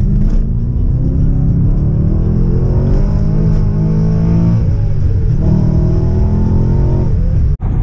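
BMW E92 M3's V8 accelerating hard, heard from inside the cabin. It pulls up through the revs, drops at an upshift about halfway through, then climbs again in the next gear.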